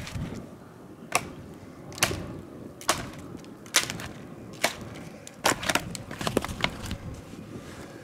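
A wooden baton strikes the spine of a large knife that is set into a short birch log, driving the blade down to split it (batoning). Sharp knocks come about once a second, then a quicker cluster of knocks comes near the end.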